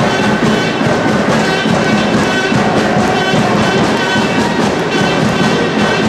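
Music with brass instruments and drums, playing steadily throughout.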